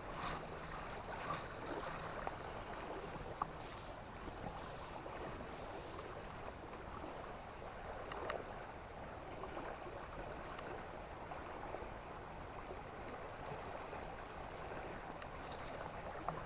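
River water flowing steadily over the streambed, with a few faint clicks, one of them sharper about three seconds in.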